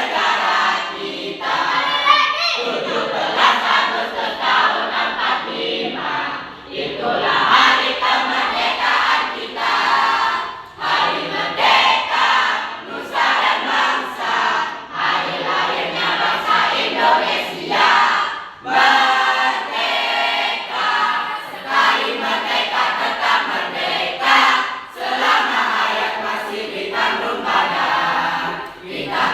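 A school class choir singing together in long phrases, with short breaks between them.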